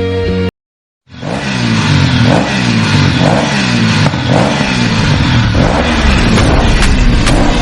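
A guitar-music film ringtone cuts off about half a second in. After a short silence the next film ringtone starts loud, carried by an engine-revving sound whose pitch sweeps repeat about twice a second.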